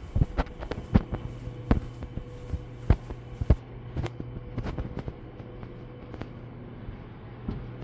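Footsteps on a stone-tiled floor: irregular sharp taps and clicks, thick in the first few seconds and thinning out after, over a steady low hum.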